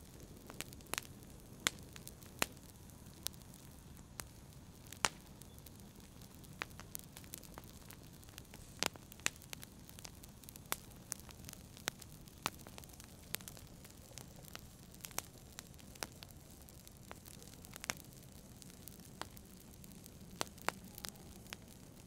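Wood fire crackling in a fireplace: irregular sharp pops and snaps, several a second and some louder than others, over a soft steady low rumble.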